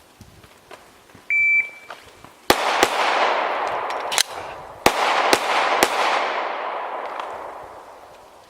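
A shot timer beeps once, then a Glock 17 9mm pistol fires two quick shots about a second later. After a pause for a reload with a single sharp click, it fires three more shots about half a second apart. A long echo trails off after the shots.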